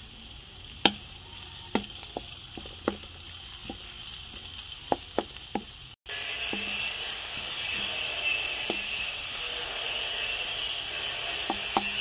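Chopped onion and garlic sizzling in hot oil in a wok, with a wooden spatula stirring. Scattered sharp ticks in the first half; after a brief break about halfway through, the sizzle is louder and steady.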